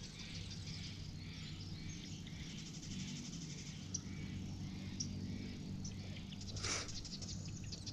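Outdoor lakeside ambience: scattered bird chirps and insect trilling over a low steady hum, with a short rustle about seven seconds in.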